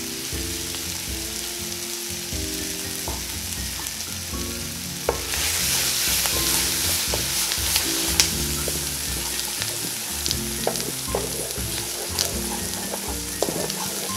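Beaten eggs sizzling in a hot oiled wok with kimchi, mushroom and scallion, being stirred with a wooden spoon. The sizzle grows louder about five seconds in, with scattered light knocks of the spoon against the pan.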